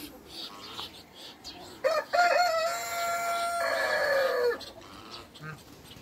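A rooster crowing once, about two seconds in. A few short opening notes lead into a long held note that slides down in pitch at the end, nearly three seconds in all.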